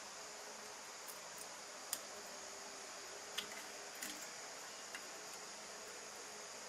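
Faint steady hiss with half a dozen small sharp clicks and taps, the loudest about two seconds in, from carbon brushes being pushed back into an alternator's brush holder and pinned with a bit of wire.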